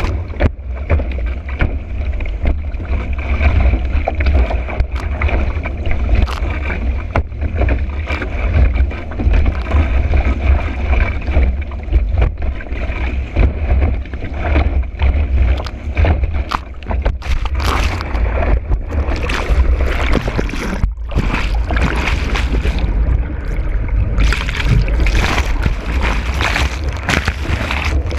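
Wind buffeting a camera mounted on a kiteboard, over water rushing and hissing past the board as it skims across chop, with frequent short slaps of the board on the water. The spray hiss grows brighter in stretches in the second half and near the end.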